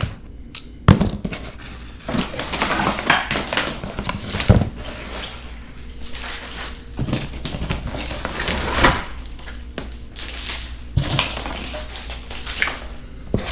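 Cardboard shipping packaging being handled and pulled about: irregular scraping and rustling with sharp knocks, the loudest about a second in and about four and a half seconds in.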